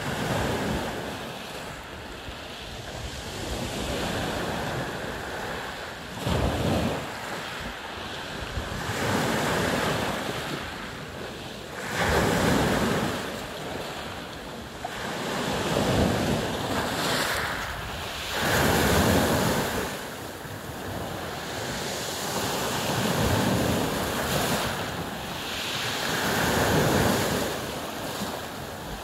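Small sea waves breaking on a pebble beach, each one swelling into a loud hiss of foam about every three to four seconds, then falling back.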